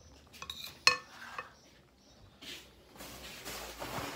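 Metal spoon clinking and scraping against a glass bowl, with one sharp clink about a second in that rings briefly. A soft, steady rustling noise follows near the end.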